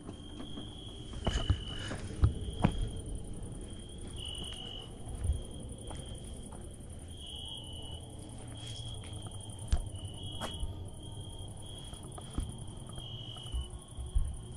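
Crickets chirping in a high, steady, repeated trill, with a few sharp knocks and a low rumble around it.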